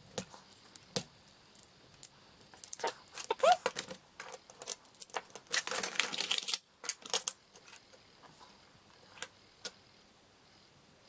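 Small metal parts of a Mul-T-Lock padlock clicking and tapping as it is taken apart, the C-clip and core being worked out. A longer rattle comes about six seconds in, and the clicks thin out near the end.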